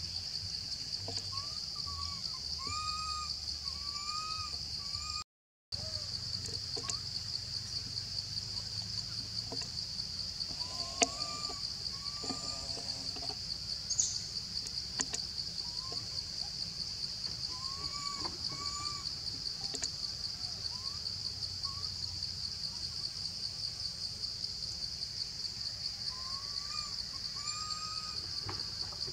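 A steady, high-pitched insect chorus with a fast pulsing buzz fills the forest. Over it come short rising-and-falling whistled calls, often in pairs, every few seconds, and a few sharp clicks.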